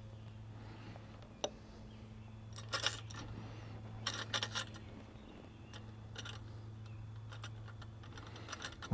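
Small metal hardware, nuts and U-bolts for a chainsaw mill clamp, being handled and fitted: scattered light metallic clicks and clinks, some in quick little clusters, over a steady low hum.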